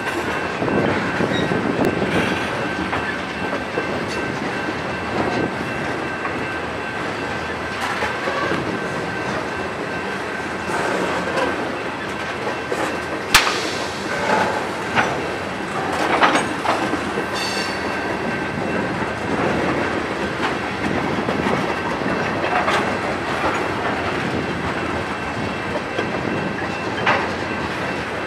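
Freight train tank cars rolling past at close range: a steady rumble of steel wheels with clickety-clack over the rail joints and a thin steady whine above it. Scattered sharp clanks from the cars, the loudest about 13 seconds in.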